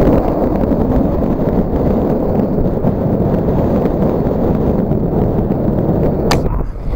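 Strong wind buffeting the camera microphone: a loud, steady, low rumble. A couple of short sharp clicks near the end.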